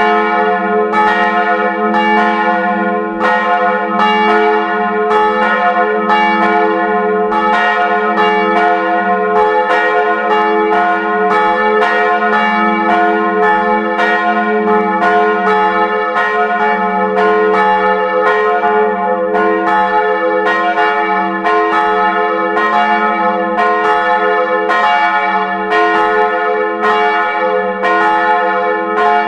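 Full peal of two swinging bronze church bells, heard close up in the bell tower: the large 1899 Ohlsson bell tuned to f' and the smaller 1985 Karlsruhe bell tuned to a-flat'. Their clapper strokes come in quick succession, interleaving, each one ringing on into the next.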